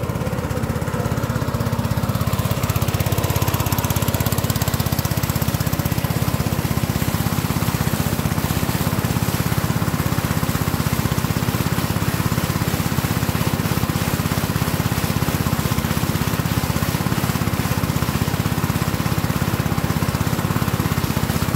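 A small engine running steadily, with water splashing and pouring as a net basket of freshwater prawns is dunked and rinsed.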